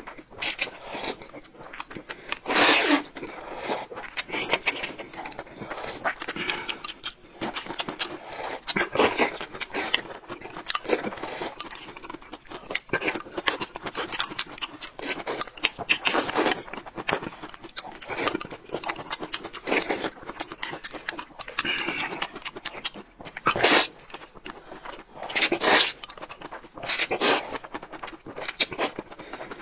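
Noodles being slurped and chewed, in irregular loud sucking slurps with short pauses between them.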